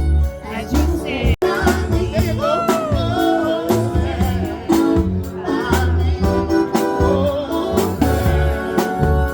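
A song with a singing voice over bass and a steady drum beat, cutting out for an instant about a second and a half in.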